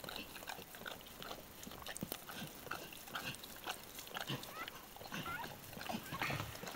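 Mother dog licking a newborn puppy clean, with steady wet licking and smacking sounds. Now and then there are faint short squeaks, likely from the puppy.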